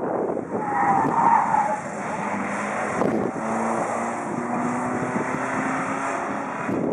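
Audi 80 B2's engine running as the car drives a cone course, with a short high squeal about a second in and then a steady engine note for the rest.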